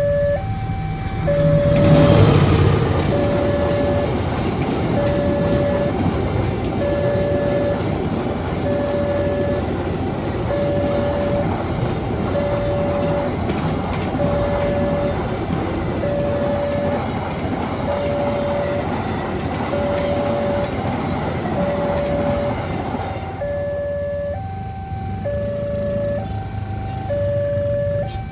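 Railway level-crossing warning alarm sounding a repeating two-note electronic tone, alternating low and high notes with a cycle of just under two seconds. About two seconds in, a train arrives and passes with a loud rumble that largely covers the alarm, then fades out near the end, leaving the two-note alarm clear again.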